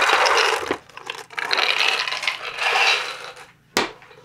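Clattering and scraping of a wooden box of letter pieces being packed up and slid away, in two spells, with one sharp knock near the end.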